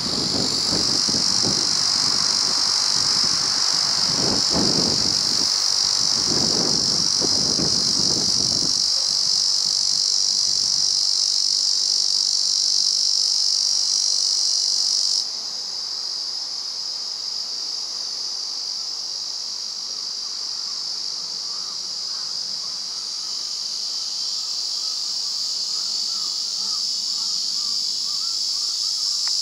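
Male Ezo cicada (Lyristes japonicus) singing a continuous, high, even buzz. It drops abruptly to a softer level about halfway through, then slowly swells again.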